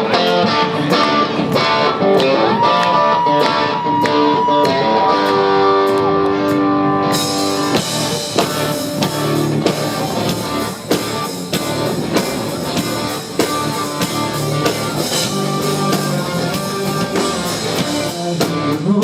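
Instrumental intro of a country rock song: guitar over a drum kit, with a long held guitar note early on. The full band comes in about seven seconds in and the sound turns fuller and brighter.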